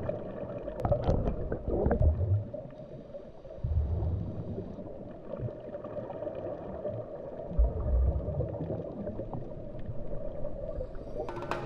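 Water heard through a submerged camera beside a boat: a muffled sloshing and gurgling wash over a steady low hum, with a few dull thumps about a second, four seconds and eight seconds in. Music with a drum beat comes in at the very end.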